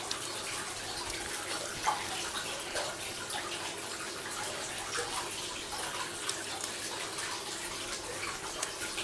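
A steady background hiss, with a few faint clicks of a metal fork against a ceramic plate as fried fish is picked apart.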